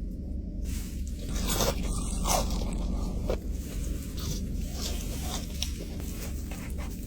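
Bites into crispy fried food, a series of crunches with chewing between them, over a steady low hum.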